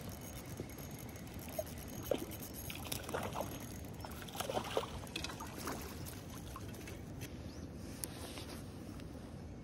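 Light water splashing and sloshing, a cluster of quick irregular splashes between about two and six seconds in, over a steady outdoor background hiss.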